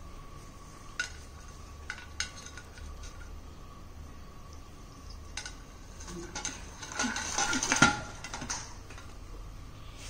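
African grey parrot pecking at and shoving an air-freshener aerosol can across a marble floor. Scattered sharp taps and clinks of beak and can on the stone, then a busier run of clattering a couple of seconds before the end.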